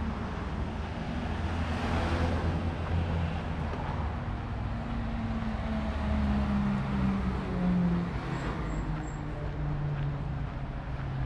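Road traffic: car and van engines running and tyres on the road alongside, with a vehicle passing about two seconds in. A low engine hum shifts in pitch through the middle as vehicles speed up and slow down.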